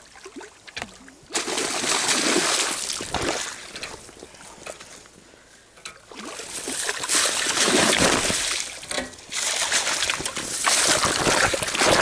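Water splashing and sloshing in three long bursts, with quieter gaps between them.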